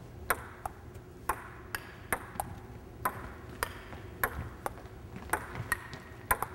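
Table tennis rally: a plastic ball clicking off the paddles and bouncing on the table, about two sharp clicks a second.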